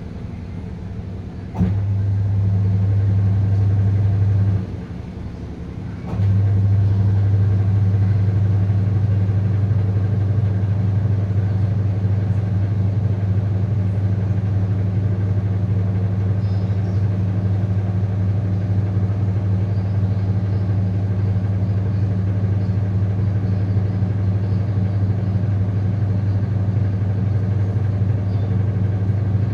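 Sharp washing machine running with a steady low electric hum. It switches on with a click about a second and a half in, cuts out briefly around four and a half seconds, and starts again with a click at about six seconds.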